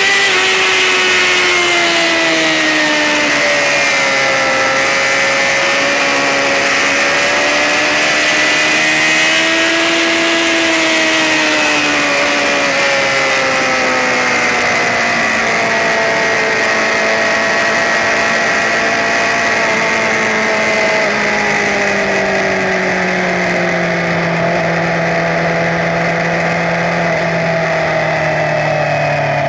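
Sportbike racing engine running at high revs, its pitch slowly rising and falling over a steady rushing hiss, then winding down to a lower pitch near the end.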